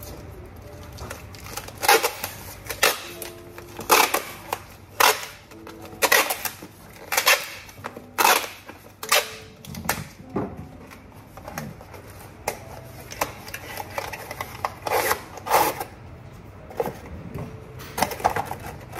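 A series of irregular sharp knocks and clatters, one every half second to a second, as of hard objects being handled.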